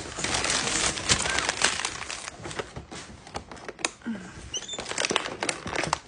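Crinkling and rattling of a toy tool set's clear plastic packaging as a capuchin monkey rummages in it, with many small clicks of plastic on plastic.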